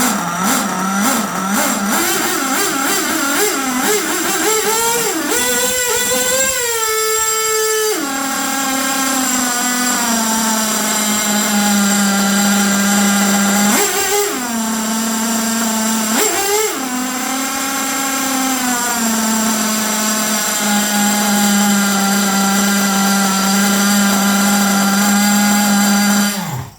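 HPI Savage nitro RC truck's small glow-fuel engine running on its stock exhaust. Its pitch wanders up and down early on, then it settles, with two quick throttle blips in the middle, and it stops abruptly at the end. The idle sits at two different speeds, a 'double idle' that the owner knows is not right and puts down to tuning.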